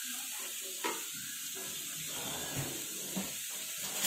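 Chopped vegetables sizzling with a steady hiss in a non-stick kadhai over a gas flame, while a wooden spatula stirs them and knocks lightly against the pan a few times, with a sharper knock at the very end.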